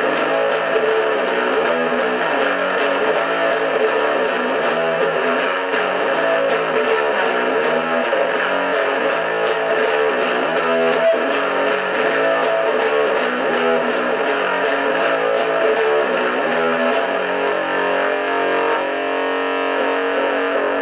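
Electric guitar, a Gibson SG Classic on its neck (rhythm-position) P-90 pickup, played through a small Fender pocket amp: a continuous picked riff with evenly repeating pick attacks.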